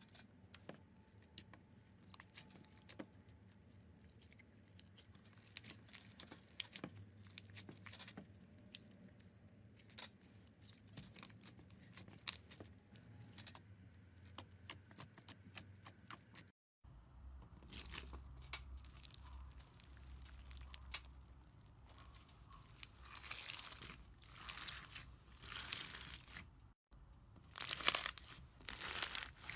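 Hands squishing and poking slime, giving a run of soft sticky pops and crackles. Near the end, slime packed with clear beads crunches and crackles more loudly as it is squeezed.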